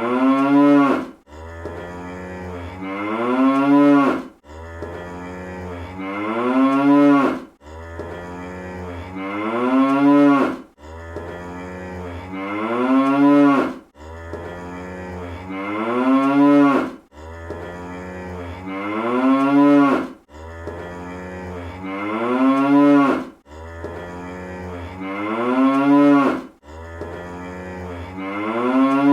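Cartoon cow moo sound effect, repeated on a loop about every three seconds, about nine times. Each moo starts low and buzzy, swoops upward in pitch as it grows louder, then cuts off abruptly.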